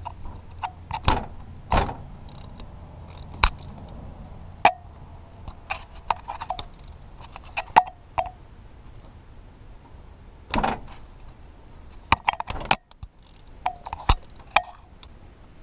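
Socket and ratchet working the crankshaft pulley bolts loose. Irregular sharp metallic clicks and clinks, some ringing briefly, with the loudest strokes clustered about a second in and again past the ten-second mark.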